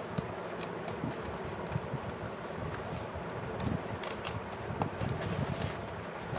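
Scissors snipping through the edge of a brown paper mailer, with irregular crinkling and rustling of the paper, over a steady hum in the background.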